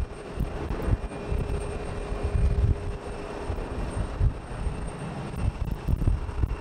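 Jet engines of a twin-engine narrowbody airliner at takeoff power during the takeoff roll and lift-off, heard from across the airfield as a steady rumble and roar.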